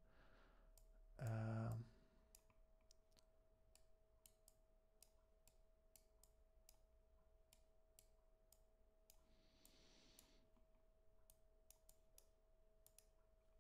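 Quiet, scattered clicks of a computer mouse over a faint steady tone. About a second in, a man briefly murmurs a hummed 'mm', and about two thirds through there is a short soft hiss.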